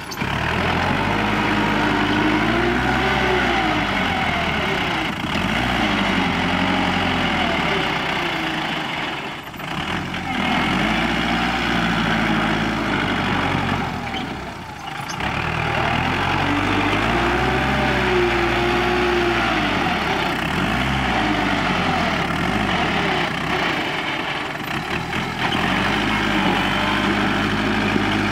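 Kubota tractor's diesel engine running as the tractor pushes and grades soil with its front blade, its pitch repeatedly rising and falling over a second or two.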